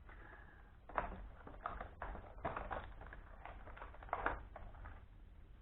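Unboxing handling of packaging and small accessories: irregular rustles and light taps, the strongest about a second in and again around four seconds in.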